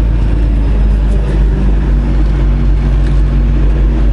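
Semi truck's diesel engine running steadily at low speed, heard from inside the cab as a loud, even low hum.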